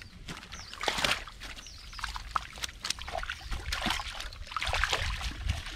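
Water splashing and dripping as a fishing net is hauled and picked over in shallow water, with tilapia flapping in the mesh: irregular short splashes throughout.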